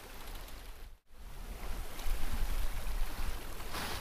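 Sailboat under way at sea: water rushing along the hull, with wind buffeting the microphone as an uneven low rumble. The sound cuts out for an instant about a second in, then carries on the same.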